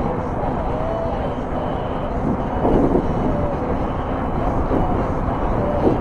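Wind rushing over the microphone of a moving e-bike, mixed with steady traffic noise from the highway alongside, and a few short wavering tones.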